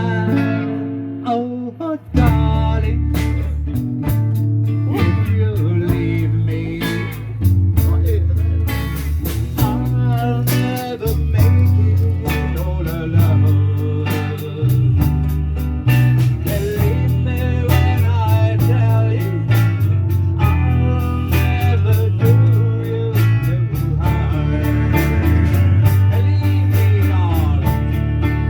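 Music with no words: plucked guitar playing a blues-style instrumental passage over a steady bass line, with a brief break about two seconds in.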